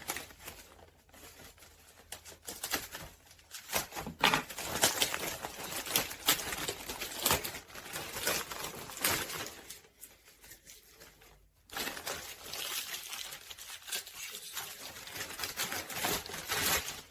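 Packaging being handled and unwrapped: irregular crinkling, rustling and crackling, pausing briefly about two-thirds of the way through.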